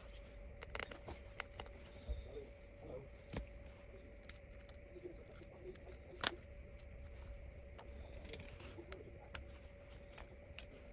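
Faint, scattered light clicks and taps of small repair tools working the LCD display cable connector inside an iPad, the sharpest about six seconds in, over a steady faint hum.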